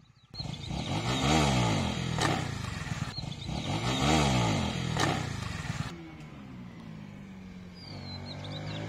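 Honda CBR 150R single-cylinder motorcycle engine revving up and dropping back twice, with a few sharp knocks in between, then settling to a quieter run.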